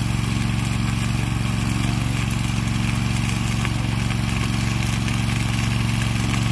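Automated rail welding machine running during a weld: a steady, even machine drone with a strong low hum.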